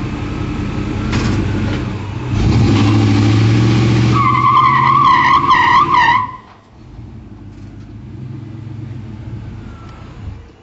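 A car engine running, joined about four seconds in by a loud wavering tyre squeal. Both cut off abruptly about six seconds in, leaving a quieter engine hum.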